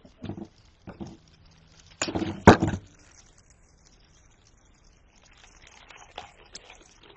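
Wire cutters snipping through the wire stem of a floral pick: a short rustle and one sharp snap about two and a half seconds in. Faint crinkling of the paper wrap being stripped off the wires follows near the end.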